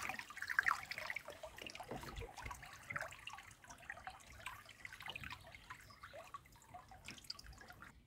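Lake water lapping and splashing against the hull of a small trimaran under sail: many small, irregular splashes and trickles with no motor.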